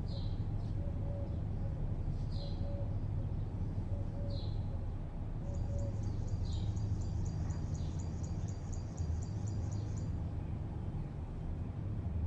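Steady low hum of distant city traffic, with birds calling over it: a short, falling high chirp repeated about every two seconds, and a fast, high pulsing trill for a few seconds around the middle.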